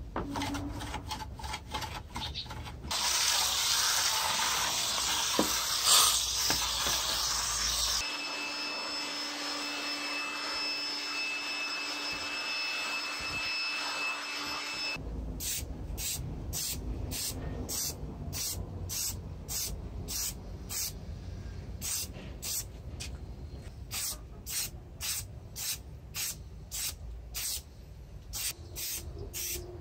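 A brush scrubbing a plastic PC case panel in soapy water. About three seconds in, a long steady rush of compressed air from a hose nozzle blowing the wet panels dry, changing in tone about eight seconds in. From about halfway on, short regular hisses of an aerosol spray-paint can, roughly one and a half a second.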